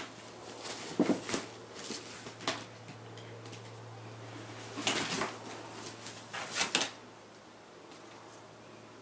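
A cat's pop-up fabric play tunnel rustling and thumping in about five short bursts as a cat pounces at a string toy and scrambles into the cubes.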